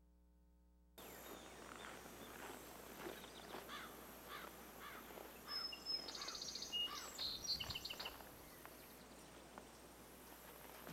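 Outdoor ambience with small birds chirping repeatedly, the chirping busiest and brightest a little past the middle. The first second is near-silent hum before the outdoor sound cuts in.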